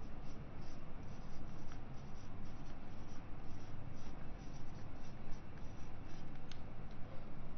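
Marker pen scratching and squeaking on a whiteboard in many short, irregular strokes as words are written by hand, over a steady low background hum.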